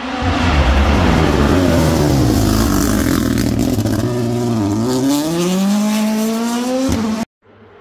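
Rally car's turbocharged engine at high revs through a hairpin: the pitch drops as the car brakes and slows into the bend, with sharp crackles from the exhaust, then climbs steadily as it accelerates out. The sound cuts off suddenly near the end.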